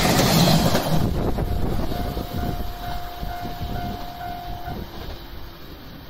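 Yellow electric commuter train rushing past at close range, its wheel and running noise loud at first and then fading away as it recedes. About a second and a half in, a train horn sounds one steady note for about three seconds.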